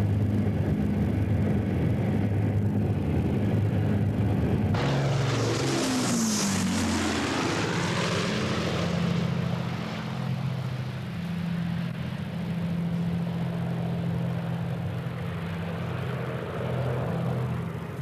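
Avro Lancaster bomber's four Rolls-Royce Merlin piston engines droning in low flight. About five seconds in, the aircraft passes close and the engine note falls in pitch, then settles back into a steady drone.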